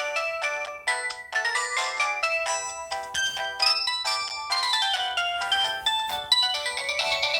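Samsung GT-E1205T mobile phone playing one of its built-in ringtones: a quick synthesized melody of short notes, with several parts sounding together.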